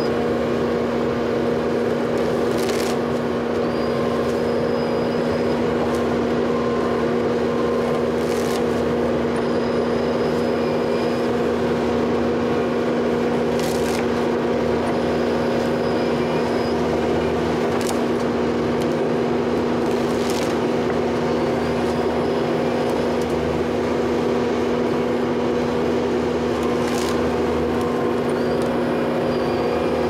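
Tracked skid steer's diesel engine running steadily at constant throttle while its hydraulic tree shear sections a downed tree trunk, with a handful of brief sharp cracks as the blade snips through the wood.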